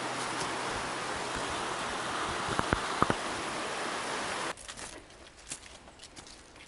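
Steady rushing of a stream, with a few short knocks about two and a half to three seconds in. It cuts off suddenly about four and a half seconds in to faint footsteps crunching through dry fallen leaves.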